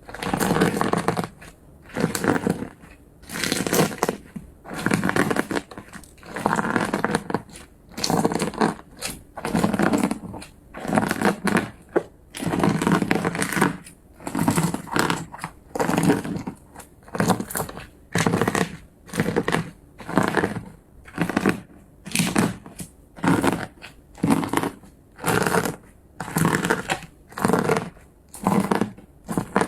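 Slime being squeezed and pressed by hand, making a noisy burst with each press, about one a second in a steady rhythm.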